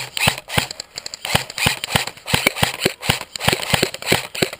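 Airsoft electric rifle firing a rapid string of single shots, about four a second at an uneven pace, each a sharp snapping crack.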